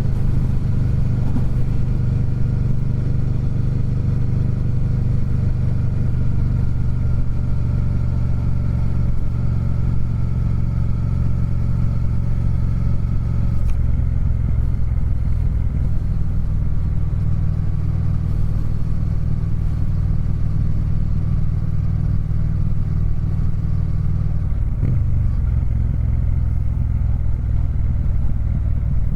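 Triumph Speed Twin 1200's parallel-twin engine running steadily under way, recorded from inside a saddlebag. The engine note sinks slowly, then changes abruptly about halfway through and again near the end.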